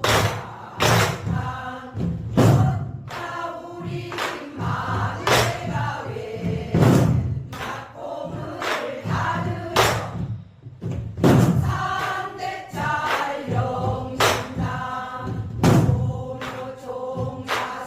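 Pansori singing accompanied by a buk barrel drum beating the jungjungmori rhythm: a sustained, wavering sung line punctuated by sharp drum strokes, the strongest falling about every one and a half seconds with lighter taps between.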